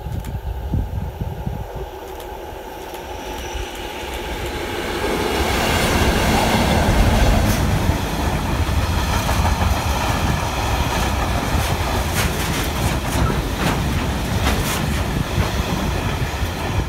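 Freight train approaching and passing close by, getting louder over the first several seconds. Then a long string of hopper wagons rolls past, with repeated clicks of the wheels running over the track.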